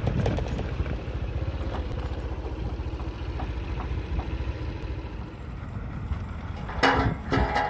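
Heavy diesel engine of a low-loader truck running at low speed with a low, even pulse. Near the end come a couple of brief, louder bursts.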